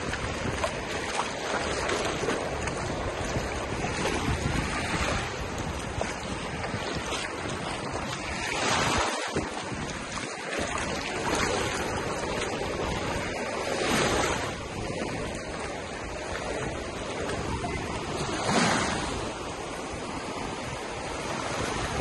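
Small sea waves washing and lapping in shallow water, with wind rumbling on the microphone; the wash swells louder a few times, about every five seconds.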